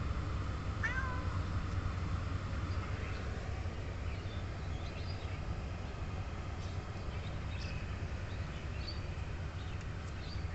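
A young cat meows once, briefly, about a second in, over a steady low hum; faint short high chirps follow later on.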